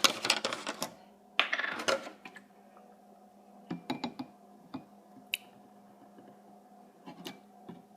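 Scattered clinks and knocks of a cup and milk container being handled while milk is added to a cracked egg in the cup, with a short noisy stretch about a second and a half in. A faint steady hum lies underneath.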